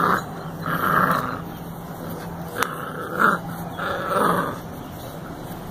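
Golden retriever puppy growling in a few short bursts while tugging on a fabric toy, with a sharp click about halfway through.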